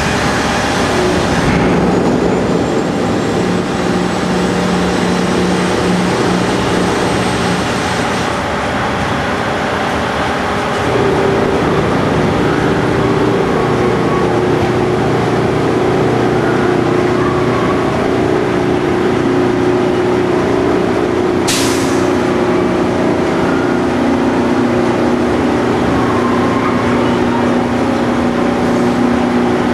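An engine running steadily with a continuous hum; its pitch and level step up a little about eleven seconds in. A single sharp click sounds a few seconds past the middle.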